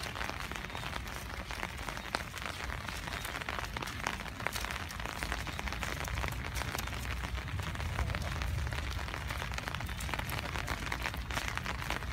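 Rain falling steadily, a dense patter of small drop hits, with a low rumble that is strongest in the second half.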